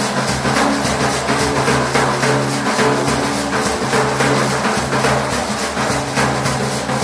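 Large frame drum (daf) played by hand in a steady, fast rhythm, the sharp strokes ringing over a sustained low hum.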